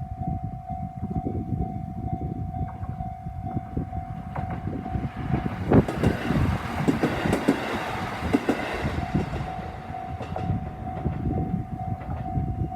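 Japanese level-crossing warning bell ringing with a steady pulsing tone while a diesel railcar passes. The train's rumble and wheels clicking over the rail joints swell to a peak about six seconds in and drown the bell for a few seconds, then fade as the bell rings on.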